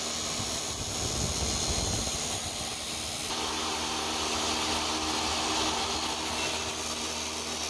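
Table saw with a sanding disc, its motor running steadily while a brake pad's friction material is ground down against the disc to thin the pad.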